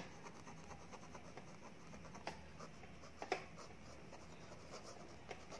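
Faint scratching of a pen writing on notebook paper, with two sharper ticks of the pen about two and three seconds in.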